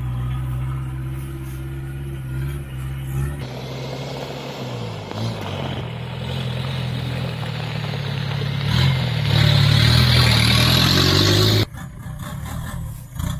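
Engine of a lifted Toyota Hilux LN106 on portal axles running off-road, in three short clips joined by sudden cuts. The middle clip grows louder toward its end, with a strong hiss over the engine, and cuts off abruptly.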